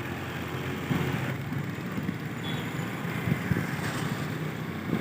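Motor vehicle engine running steadily amid street traffic, with wind on the microphone.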